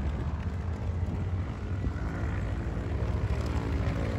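Radial piston engines of several WWII-era propeller warbirds running on the ramp: a steady low engine drone that grows louder toward the end.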